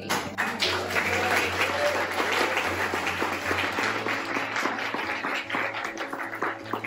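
Audience applauding, starting at once and easing off a little toward the end.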